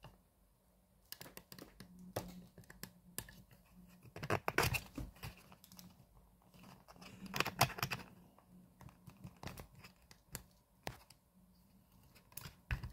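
Handling noise from a camera tripod being repositioned: scattered scrapes, rustles and light knocks, with the loudest bursts about four and seven seconds in, over a faint steady hum.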